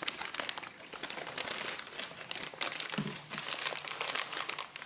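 Paper being handled and crumpled: a continuous run of quick crinkles and crackles.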